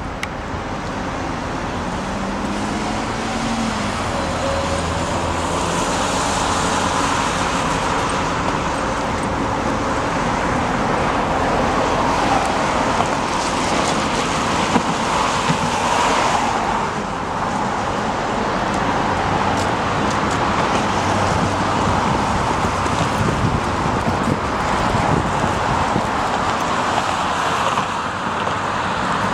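Steady city road traffic: cars driving past on a wide multi-lane road. The noise swells once, about halfway through, as a vehicle passes more loudly.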